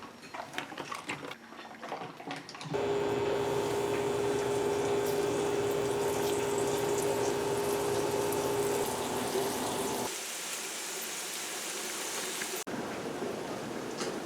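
A few light clinks, then a kitchen tap turned on about three seconds in and running steadily with a faint hum in the pipes. The flow drops to a quieter, softer stream about ten seconds in.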